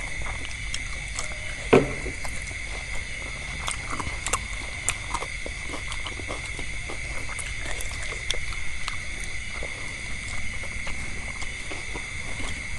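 People eating fried meatballs and vegetables: many small scattered clicks of chewing and of cutlery on dishes, with one sharper knock about two seconds in, over a steady high-pitched hum.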